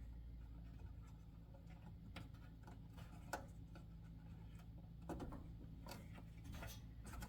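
Faint scattered clicks and scraping of hands fitting a ribbon cable into a circuit board connector, with one sharper click about three seconds in, over a low steady hum.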